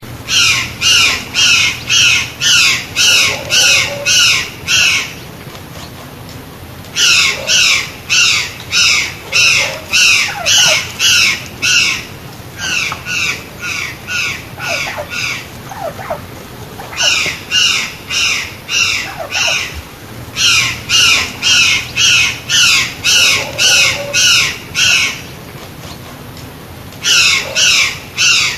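White-naped jay (gralha-cancã) calling: a fast series of loud, evenly spaced calls, about two a second, in runs of about five seconds broken by short pauses.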